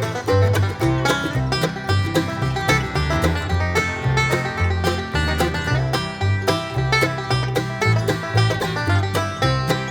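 Background music: a quick, bluegrass-style tune of picked strings over a bass line that steps from note to note.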